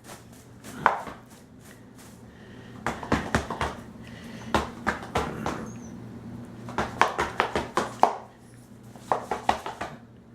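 African grey parrot biting and tearing at a cardboard box: several clusters of sharp snapping and crackling.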